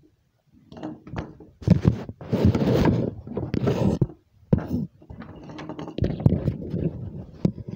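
Handling noise on a phone's microphone: irregular rubbing, rustling and knocks as the phone is moved about and brushes against clothing.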